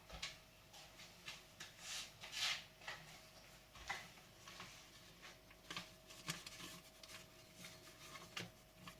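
Carbon steel knife blade scraping on a whetstone in short, irregular strokes, roughly two a second.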